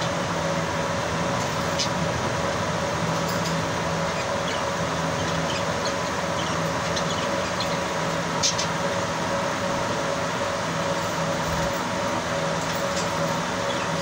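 A steady mechanical hum and hiss runs throughout, with a few short, high chirps from caged lovebirds, notably about three seconds in and again past the middle.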